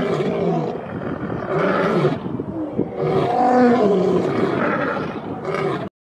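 Lion roaring in a series of calls, each lasting a second or less, that stops suddenly near the end.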